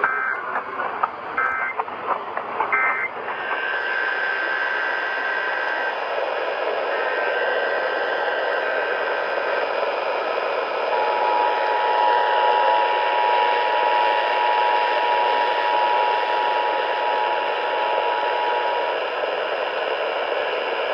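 Emergency Alert System tones heard over radio hiss. Three short bursts of data tones near the start are the end-of-message signal closing the previous test, followed by a few seconds of steady high tone. About eleven seconds in, the two-tone attention signal sounds steadily for about eight seconds.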